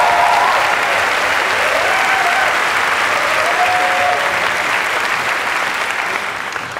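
Theatre audience applauding steadily, the clapping fading out near the end.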